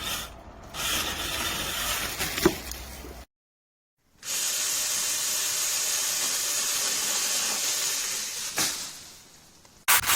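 Small battery-powered chainsaw running in short spells cut together, a steady high hiss with sharp snaps, winding down near the end.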